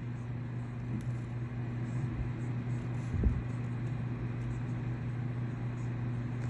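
Steady low machine hum with a constant pitch, and a single soft thump about three seconds in.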